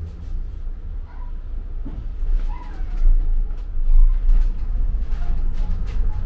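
Double-decker bus in motion: a steady low rumble of engine and road noise, growing stronger about halfway through, with faint brief high chirps or squeaks over it.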